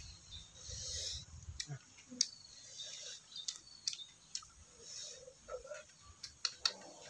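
Brittle tamarind pod shells being cracked and peeled apart by hand: irregular sharp crackles and snaps, about a dozen, with soft rustling between.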